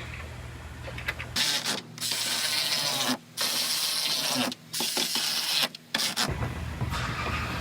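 Loud hissing in five bursts separated by short breaks, starting about a second and a half in and ending about a second before the close.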